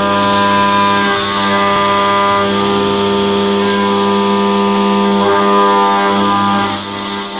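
Background music of sustained chords that change a couple of times.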